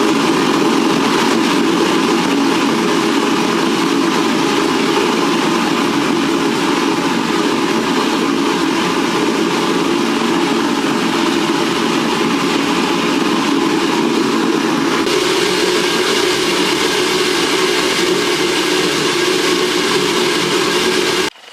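Gas burner running steadily, heating the tip of a steel file to hardening temperature. It cuts off suddenly about a second before the end.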